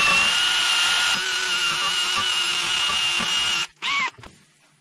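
Cordless brushless drill spinning a wire brush against a rusty brake hub, scouring off the rust: a steady high motor whine over a harsh scraping hiss. It stops abruptly about three-quarters through, followed by a short burst that falls in pitch.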